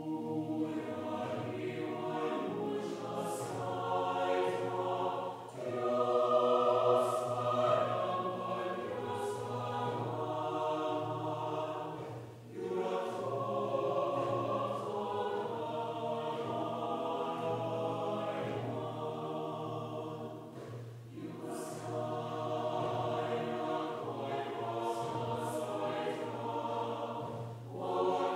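Choir singing in long sustained phrases, with brief breaks about every seven seconds, over a steady low tone. Sung consonants add a few short hisses.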